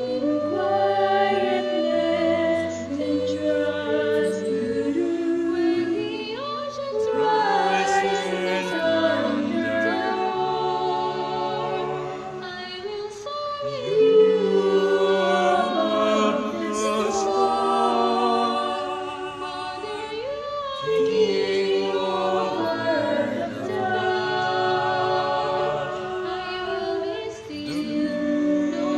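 A small mixed group of young male and female voices singing a slow song together in harmony, a cappella.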